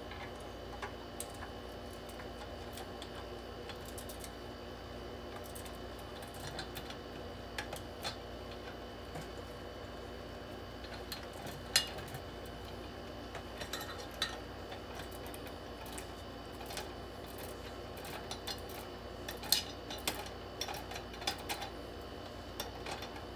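Scattered small metallic clicks and clinks as a key is worked in the lock of a Rhino gumball machine's metal lid and the lid is handled, with one sharp click about twelve seconds in and a run of clinks near the end. A steady low hum sits underneath.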